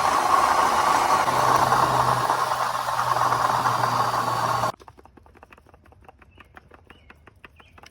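Ford 4.6-litre V8 of a 2006 Crown Victoria/Grand Marquis running with a rattling, grinding noise from the water pump, whose internal bearings are worn. Just over halfway through the sound stops abruptly, leaving only faint rapid clicking.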